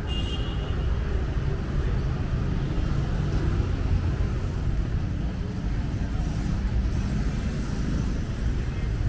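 Steady city street traffic noise: a continuous low rumble of passing road vehicles with a general hiss above it.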